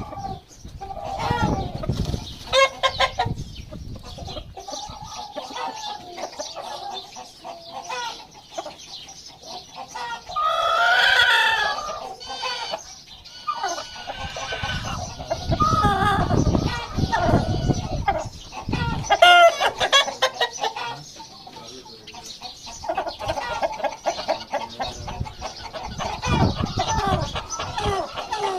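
Aseel roosters and chickens clucking and calling on and off, with one rooster crow lasting about two seconds around ten seconds in.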